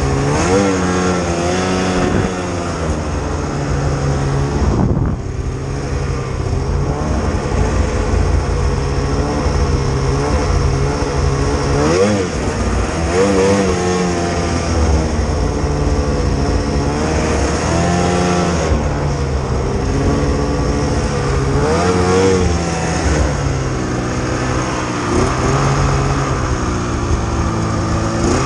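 Snowmobile engine running hard through deep snow, its revs rising and falling again and again as the throttle is worked, with a brief drop in revs about five seconds in.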